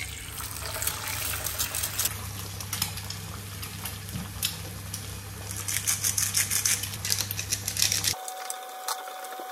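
Eggs frying in butter in a frying pan: a steady sizzle with dense crackling spits. The sound cuts off abruptly about eight seconds in.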